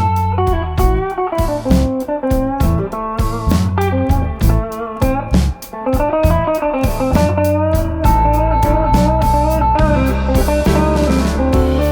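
Background music led by a guitar, with a steady beat and a held bass note in the second half.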